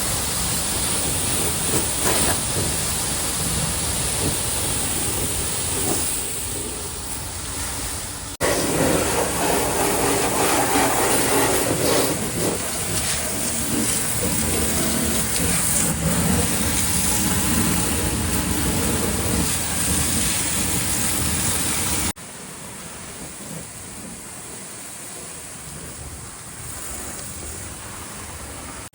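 A jet of water spraying hard onto the excavator's steel body, a steady hiss. It jumps louder about a third of the way in and drops abruptly to a quieter spray later on.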